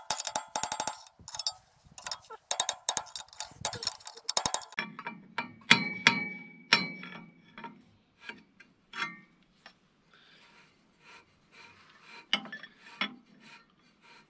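Hammer striking a steel bar held against a tight, stuck engine pulley, knocking it free. A quick run of light taps comes first, then single sharp metallic strikes a second or more apart, some of them ringing.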